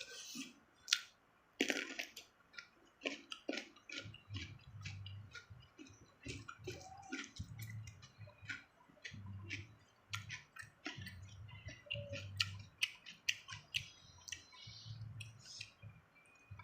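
Close-miked chewing of crunchy raw cucumber and young green mango: a steady run of crisp little crunches and wet clicks over soft, rhythmic low jaw thuds.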